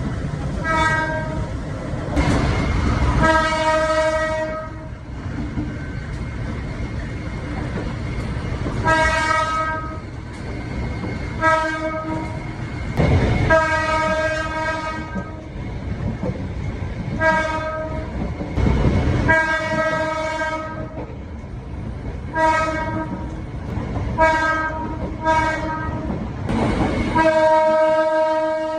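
Indonesian diesel locomotive air horn sounding about a dozen blasts, mostly short with several longer ones of a second or more: the Semboyan 35 horn signal. Heard from aboard the moving train, over a steady rumble and the clatter of wheels on the rails.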